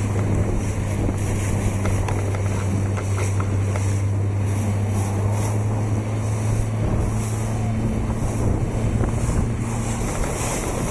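Motorboat engine running at a steady low hum, under wind buffeting the microphone and the rush of water.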